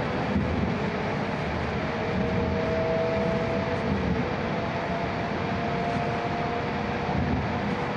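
Faint whine of an E6 series Shinkansen's traction motors, heard inside the passenger car over the steady rumble of the train running. The whine holds two steady tones, and the upper one rises slightly about two seconds in.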